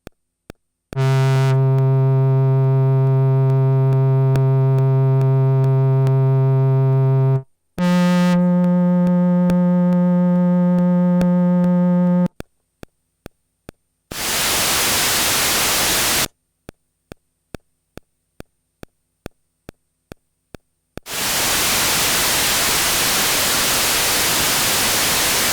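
Moog Messenger synthesizer patches played one after another: a low held note for several seconds, then a higher held note, then bursts of white-noise hiss from a noise patch. Faint steady clicks, about two a second, fill the gaps between the sounds.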